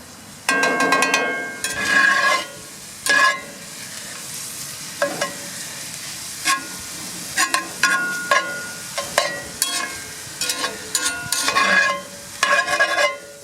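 Spatula chopping and scraping loose pork sausage in a seasoned pan, some of it sticking to the pan: a run of irregular sharp scrapes and knocks, some ringing briefly, over a steady sizzle of frying meat.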